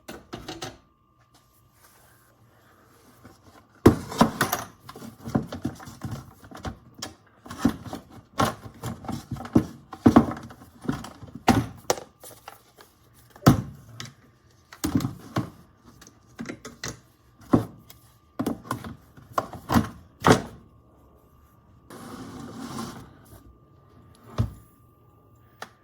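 Tumbled brass cartridge casings clattering and clinking in bulk as they are separated from the tumbler's polishing media, with a run of rattles and knocks from about four seconds in. Near the end comes a softer, noisier stretch of shaking.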